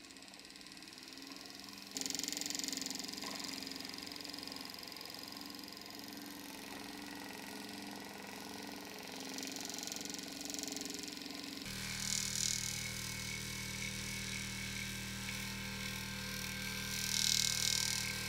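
3D-printed brushless DC motor running on its driver board: a steady electric whine and hum made of several fixed tones. About two seconds in it turns abruptly louder, and just past the middle a deeper hum cuts in suddenly and holds.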